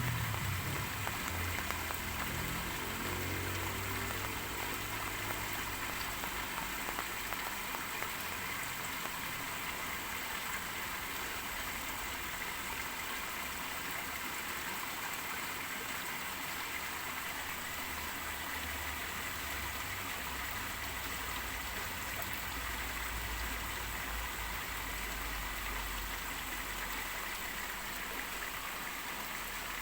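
Steady rain falling, an even, dense hiss of many drops. A low hum fades out in the first couple of seconds.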